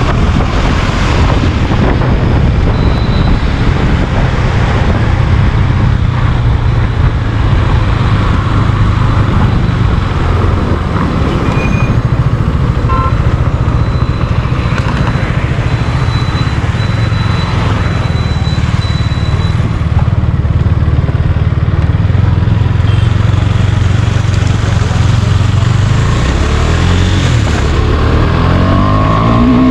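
KTM Duke 390's single-cylinder engine running steadily while riding. Near the end it revs hard in repeated rising pulls as the bike accelerates up through the gears.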